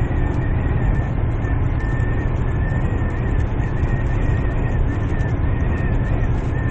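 Strong gusting wind buffeting a vehicle, heard from inside as a steady low rumble, with a faint wavering high whistle throughout.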